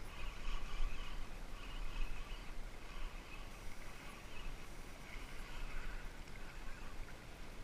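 Steady outdoor background by the sea: a low rumble, like wind on the microphone, under an even hiss of water, with no distinct single sound.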